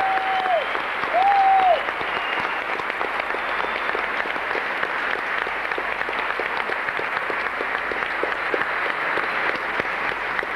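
Theatre audience applauding steadily, with two held whistles from the crowd in the first two seconds.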